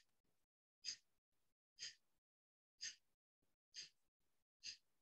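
Kapalabhati (skull shining breath) breathing: short, sharp exhalations forced out through the nose, five of them at about one a second, each driven by pulling the belly in. The inhales between them are passive and barely heard.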